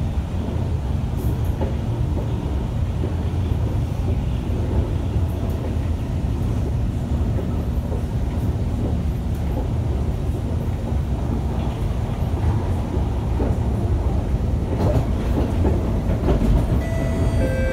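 Kawasaki Heavy Industries C151 metro train heard from inside the car, running through a tunnel: a steady, heavy rumble of wheels on rail. A few steady tones come in near the end.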